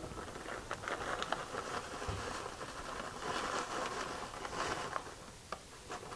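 Shredded cheddar cheese tipped from a plastic bag, pattering and rustling softly onto food in a pan, with a couple of light clicks near the end.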